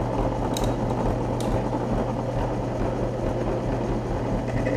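Drill press motor running steadily with a 3/8-inch solid carbide bit turning, with two light metallic clicks in the first second and a half. Near the end a faint high whine starts as the bit is fed down onto hardened 440C stainless steel plate.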